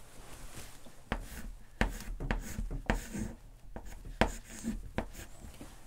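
Chalk writing on a blackboard: a run of sharp, irregular taps with faint scraping between them, starting about a second in and stopping near the end.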